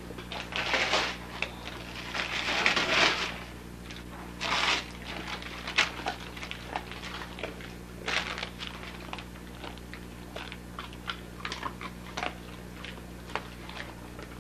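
Dogs rummaging in and tearing crumpled wrapping paper, crinkling and rustling in bursts that are loudest in the first few seconds and again about four seconds in. After that come scattered crackles and chewing clicks as a dog mouths a gift.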